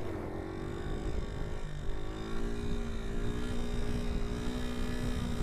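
Suzuki SP250's single-cylinder four-stroke engine pulling hard in second gear as the front wheel lifts into a wheelie, its note fairly steady. Wind rumbles on the microphone.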